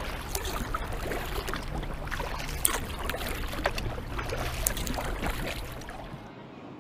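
Kayak paddles dipping into river water, with dripping and splashes, a few stronger strokes about once a second. The water sound cuts off abruptly about six seconds in, leaving a quieter background.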